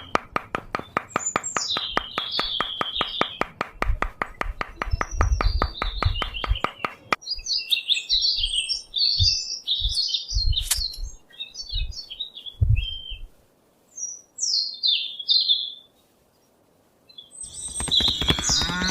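Small birds chirping and twittering, with a fast, regular ticking under them for the first seven seconds. A few low thumps come in the middle, and a cow starts to moo near the end.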